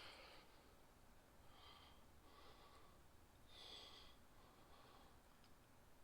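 Near silence: quiet room tone with a few faint, short hissing sounds about a second apart.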